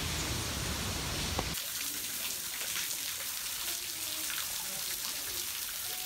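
Water dripping off a rock overhang in a fine, irregular patter of drops splashing on the rock below. Before it, a low rumble cuts off suddenly about a second and a half in.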